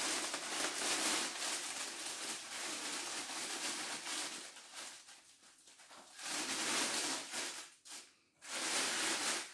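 Plastic roasting bag rustling and crinkling as it is twisted and tied shut around a whole carp. The rustling dies down about four and a half seconds in and comes back in two short spells near the end.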